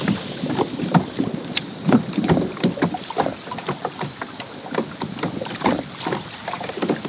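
Water lapping and slapping irregularly against a kayak hull, with wind noise on the microphone.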